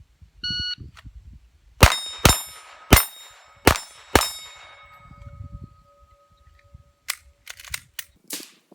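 A shot timer's start beep, then five pistol shots from a Glock in about two and a half seconds, each one followed by the ring of a struck steel plate. Afterwards a few lighter clicks and knocks.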